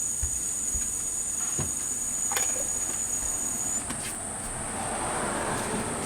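Crickets trilling steadily in the background, a continuous high-pitched ringing, one strand of which stops about two-thirds of the way through. A few light clicks and a soft rustling noise come near the end.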